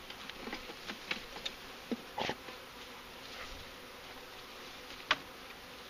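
A mass of package honeybees buzzing steadily around an open hive, with several short knocks and clicks from equipment being handled, the sharpest about five seconds in.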